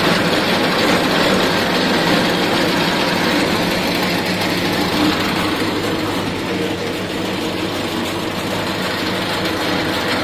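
V Agro Tech arecanut dehusker running steadily, its rotor stripping the husks off areca nuts: a loud, even mechanical din over a constant low hum.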